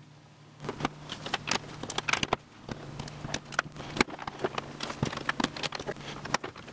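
Plastic LEGO bricks clicking and tapping as pieces are handled and pressed together onto a plate. The irregular clicks begin about half a second in, with one sharper click about four seconds in.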